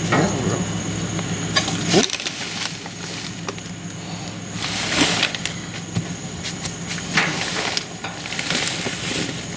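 Trash being rummaged through in a dumpster: rustling with several louder crackles and knocks spread through, over a steady low hum.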